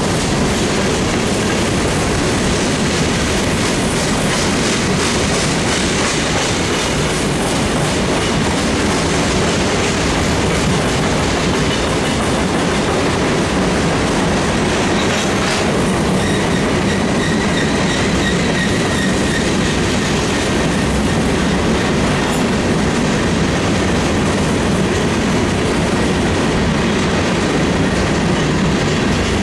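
Train cars rolling past, loud and steady, wheels clicking over the rail joints, with a faint wheel squeal for a few seconds midway.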